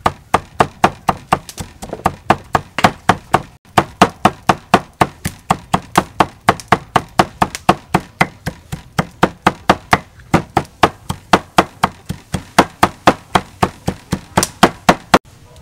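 Steel cleaver chopping dried red chillies on a round wooden chopping board: a steady run of knocks, about four a second, with a brief pause about three and a half seconds in, stopping just before the end.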